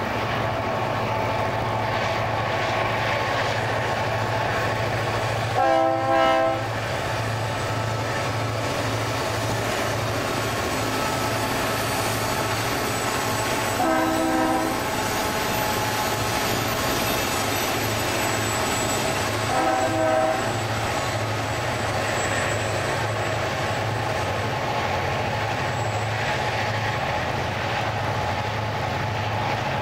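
A freight train's diesel locomotives run past with a steady low drone, and a multi-chime air horn sounds in short blasts three times: a quick double blast about six seconds in, one near the middle, and another about two-thirds of the way through.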